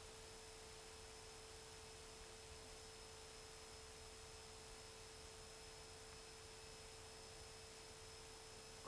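Near silence: faint tape hiss with a faint, steady single tone underneath, from a blank stretch of an old VHS transfer.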